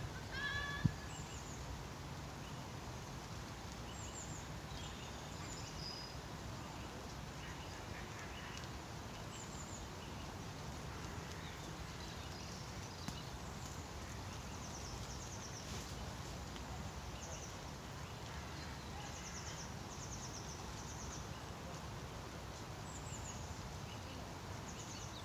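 Steady outdoor background of light rain over a pond, with small birds chirping high and briefly on and off throughout, and a short pitched bird call in the first second.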